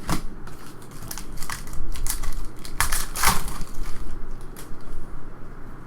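Trading cards being flipped and slid off a stack by hand: a run of short, dry scratches and clicks, the loudest about three seconds in.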